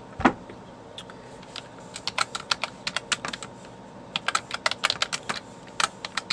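Typing on a computer keyboard: three short runs of quick keystrokes, the first starting about two seconds in. A single dull knock comes just after the start.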